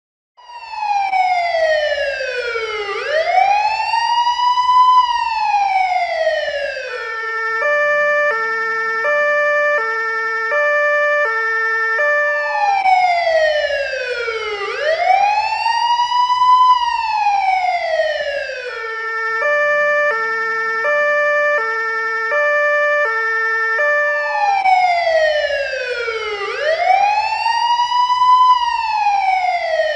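Police car siren sounding continuously, alternating a slow wail that falls and rises in pitch with a stepped two-tone pattern, the cycle repeating about every twelve seconds.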